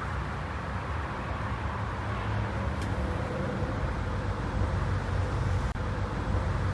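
Steady low rumbling background noise with a faint steady hum, no speech.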